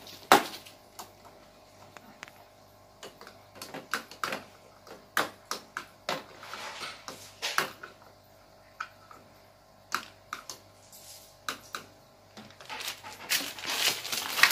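Plastic toy kitchen utensils and pots clicking and clattering irregularly as a child handles them, with the sharpest knock just after the start and some light rustling in between.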